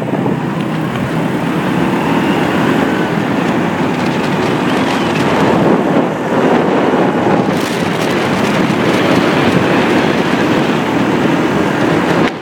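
Wind rushing over the microphone and road noise from a moving motorcycle taxi in traffic: a loud, steady rush with no clear engine note.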